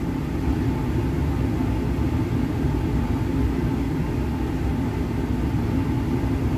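Steady low rumble of a laboratory fume hood's exhaust airflow.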